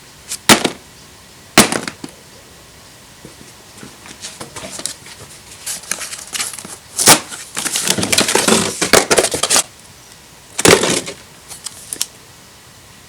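A few sharp knocks and clicks, about a second in and again later, with crackling, rustling noise in between, like things being handled at close range.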